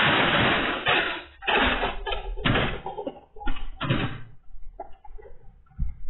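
A loud, noisy crash and clatter of metal cuts off about a second and a half in. Several separate bangs follow over the next few seconds, then a few fainter knocks, as a traffic light pole is knocked down by a pickup truck.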